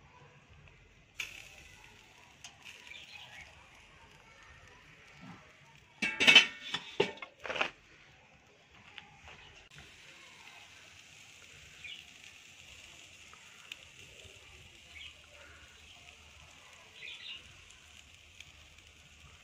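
Stainless wire fish-grilling basket clattering against the Weber kettle's grate several times about six seconds in as it is turned over, over a faint steady hiss.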